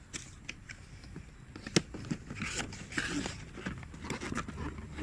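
Packaging being handled while a gimbal box is unpacked: scattered clicks and rustling of cardboard and plastic, with one sharp click a little under two seconds in.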